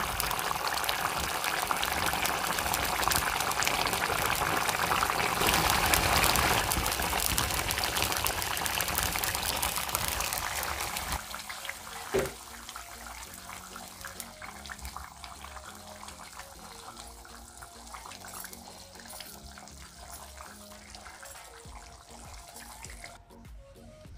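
Fish curry boiling and sizzling in a kadai over a wood fire, a dense steady hiss that drops away to a much quieter background about eleven seconds in, with a single sharp click soon after.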